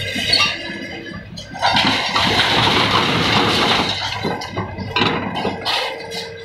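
Caterpillar hydraulic excavator demolishing a concrete building with a grapple attachment. The engine runs steadily under a long rush of concrete rubble and twisted metal scraping and falling, loudest from about one and a half seconds in for a couple of seconds, followed by several sharp knocks of debris.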